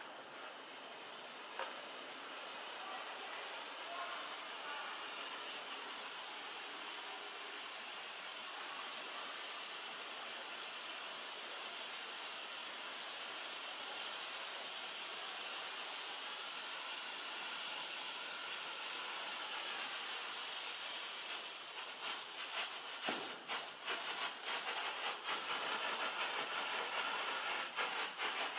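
Bengalo Fatalo No.1 red Bengal flare burning with a steady hiss, with a few crackles in the last several seconds. Crickets trill steadily at a high pitch over it, the loudest thing heard.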